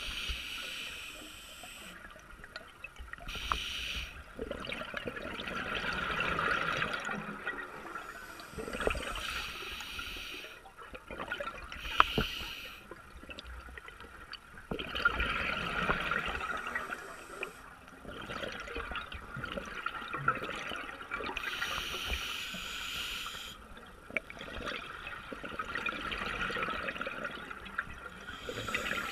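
Scuba diver breathing through a regulator underwater: a hiss on each inhalation and a gurgling rush of exhaled bubbles, the cycle repeating every few seconds. A single sharp click about twelve seconds in.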